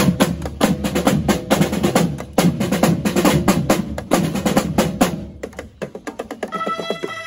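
Marching band snare drum line playing a fast, dense cadence of rapid strikes. It thins out and drops in level about five seconds in, and near the end a few ringing pitched notes begin.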